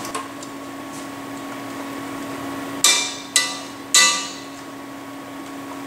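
Metal tongs knocking three times against the rim of an enamelled cast-iron pot, sharp clanks with a short ring, over a steady background hum.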